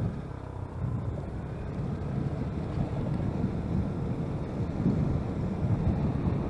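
Wind noise on the microphone of a moving vehicle, over a low road-and-engine rumble that slowly grows louder.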